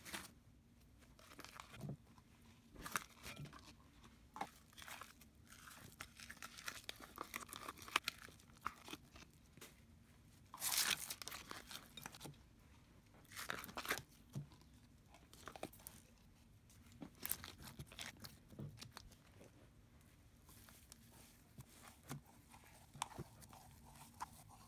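Slime being mixed, stretched and squished by hand, making irregular soft crackles, clicks and small pops, with a few louder squishes.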